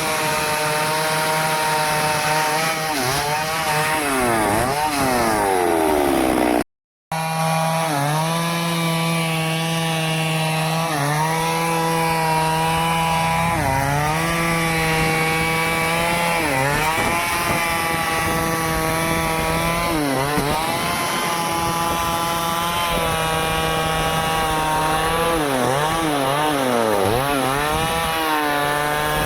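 Stihl chainsaw cutting wood at high revs, its engine pitch dropping and climbing back again and again as the chain bogs in the cut and recovers. The sound cuts out completely for a moment about seven seconds in.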